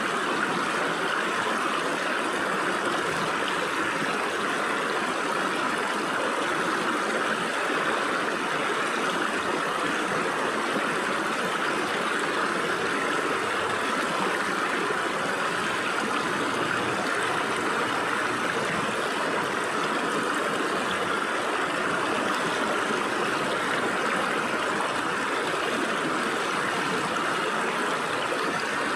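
Stream water flowing and splashing through gaps between rocks, a steady rushing with no breaks.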